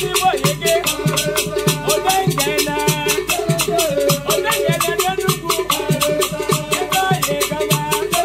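Music with a fast, even beat and a repeating melody.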